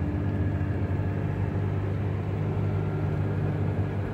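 Car driving along a road, heard from inside the cabin: a steady low engine and road hum.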